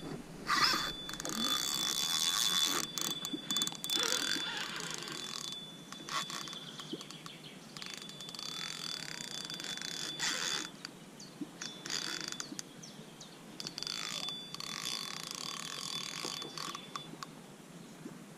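Fishing reel's drag buzzing as a hooked carp pulls line off against it, in three runs of a few seconds each, the first the loudest.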